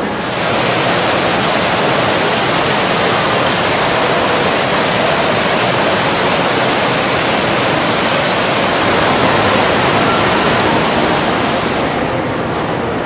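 Water pouring down the rock face of a decorative fountain: a steady rushing splash that rises just after the start and fades out near the end.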